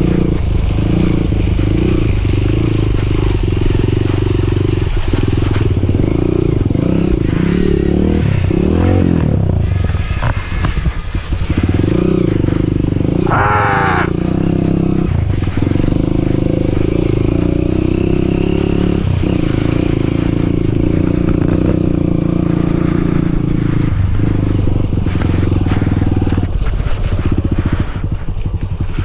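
Dirt bike engine running under way, its revs rising and falling with the throttle. The engine drops back briefly about ten seconds in and again near the end, with a short higher rise and fall in pitch a few seconds after the first drop.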